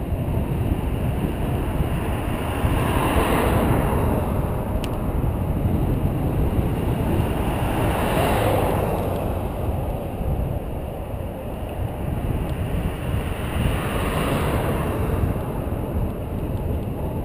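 Wind buffeting the microphone of a bicycle-mounted action camera while riding, a steady low rumble. Three times, about three, eight and fourteen seconds in, the sound of passing traffic swells and fades.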